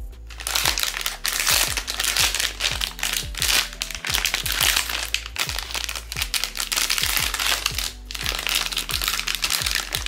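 Blind box packaging crinkling loudly as it is handled, with short pauses, over background music with a steady beat.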